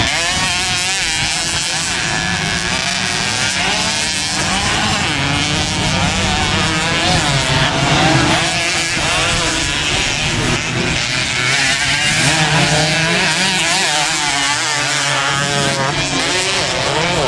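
Several motocross dirt bikes racing, their engines revving hard and falling back again and again with overlapping, constantly changing pitches.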